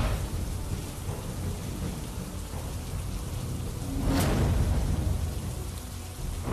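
Rain falling steadily under a low rumble of thunder, which swells louder about four seconds in.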